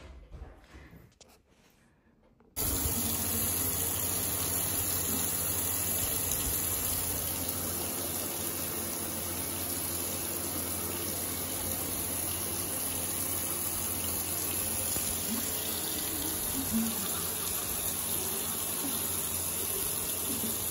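Bathroom tap running steadily into a sink, starting suddenly about two and a half seconds in.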